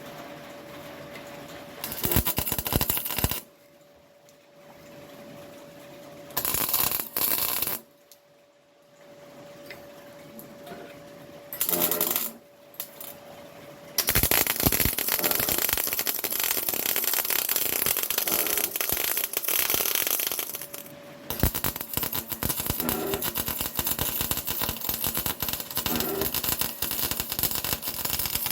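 Electric arc welding crackling on steel plate: three short tacks of a second or so, then one long continuous run from about halfway that breaks off briefly and carries on. The bead is being laid uphill, which leaves a big blob at the edge. A faint steady hum sits under the gaps between tacks.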